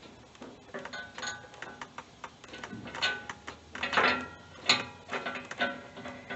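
Irregular metallic clinks and clanks, several with a short ring after them, from steel tools and blade hardware being handled while reassembling a bush hog's blades; the strikes grow louder and more frequent about halfway through.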